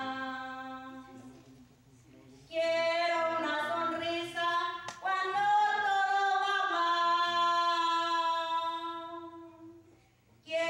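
A woman singing a slow Spanish worship song into a microphone, unaccompanied, on long held notes. One phrase fades out about two seconds in; after a short pause she holds a long line that fades away near the end.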